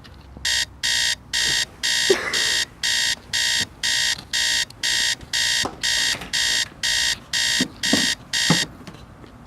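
Electronic alarm beeping in a fast, regular pattern, about two beeps a second, stopping near the end. A few short falling squeaks sound underneath.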